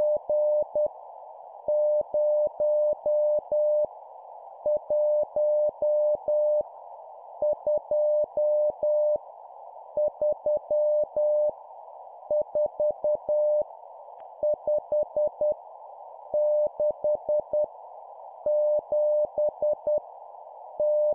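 Morse code (CW) practice tone sending numbers at 10 words per minute: a single steady beep keyed into dots and dashes, one digit of five elements about every two seconds, over a steady hiss.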